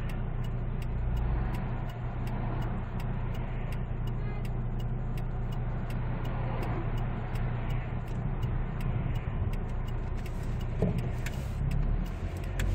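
Cabin noise of a 2005 SsangYong Musso Sports diesel pickup driving at a steady pace: a steady low engine drone with road noise, and a faint, evenly repeating ticking.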